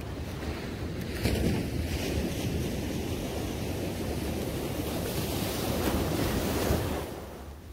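Small waves breaking and washing up a sandy beach. The surf swells about a second in and dies down near the end, with wind rumbling on the microphone.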